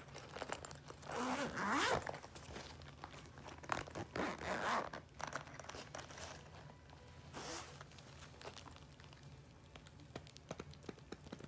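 Zipper on a black Comica fabric carrying case being drawn open in several rasping pulls, the loudest about a second in and around four seconds in, with a weaker pull near seven and a half seconds and small clicks and rustles of the case between them.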